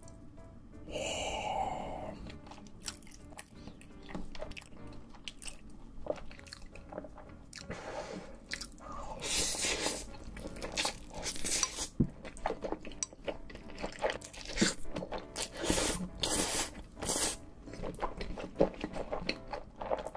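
A person slurping and chewing spicy Buldak fire noodles coated in cheese sauce, close to the microphone. Wet mouth sounds and small clicks run throughout, with a few longer slurps in the middle.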